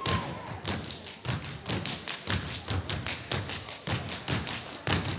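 A step team stepping in unison on a wooden stage: a fast, even rhythm of foot stomps and sharp claps, several strikes a second.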